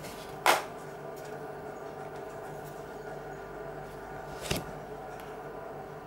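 A sharp plastic snap about half a second in, from the Alcatel 2053D flip phone being handled and its clamshell closed, and a softer knock about four and a half seconds in, over a steady low background hum.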